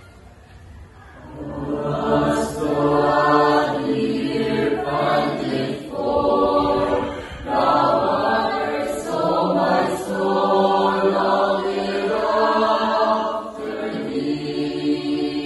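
Church choir singing together in sustained phrases, starting about a second in, with short breaks between phrases.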